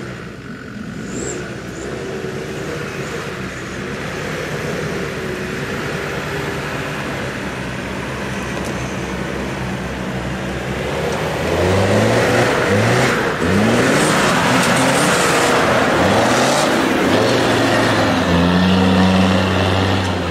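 Land Rover Discovery TD5's five-cylinder turbodiesel engine working off-road. It runs fairly steadily at first, then from about halfway it is revved up and down repeatedly under load, louder, with a rush of noise alongside.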